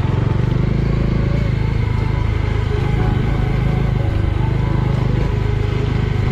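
Motorcycle engine running steadily, its firing pulses even throughout.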